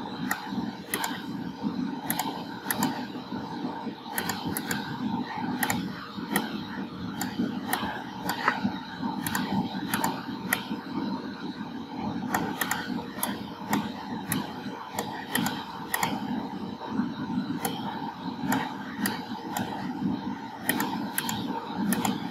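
Computer mouse clicking at an irregular pace, one or two clicks a second, as shapes are selected and dragged, over a steady low background noise.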